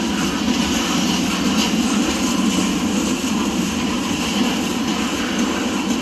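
Freight train of boxcars rolling past close by: a loud, steady rumble of steel wheels on the rails.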